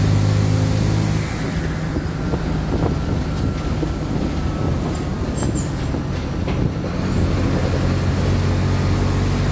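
Mercedes-Benz OF-1722M city bus diesel engine heard from inside the bus: it runs steadily, then drops off about a second in as the bus coasts, and picks up again about seven seconds in. A few faint clicks and rattles come near the middle.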